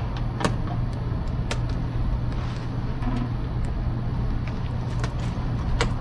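A few sharp clicks of an August smart lock being pressed onto its mounting plate over an RV door's deadbolt and turned, over a steady low hum.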